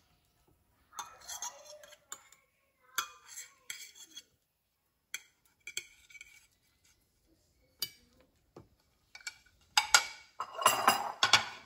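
A metal fork clinking and scraping on ceramic plates as avocado slices are moved from one plate to another, in scattered light clinks. Louder clattering of dishes near the end.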